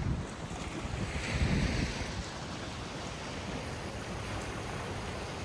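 Ocean surf washing onto the beach, with wind buffeting the microphone; a wave swells up about a second and a half in, then the wash settles to a steady rush.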